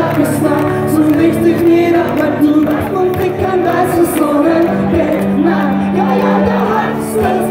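Live rock band playing through a festival PA, with electric guitars and singing.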